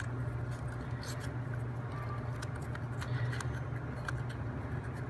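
Scattered light clicks and taps of laser-cut plywood puzzle parts, the code rings of a wooden combination-lock model, being handled and seated, over a steady low hum.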